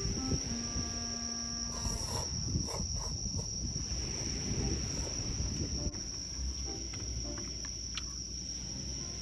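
Insects chirring outdoors: one continuous high trill holds steady throughout, over a low rumble. A few notes of background music sound near the start and again at the end.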